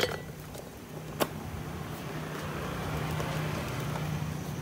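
A steady engine hum in the background, growing a little louder, with one sharp click about a second in.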